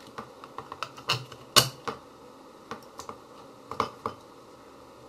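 Irregular small clicks and taps of hands handling a racing drone's blue plastic propeller and frame, with the loudest knock about a second and a half in.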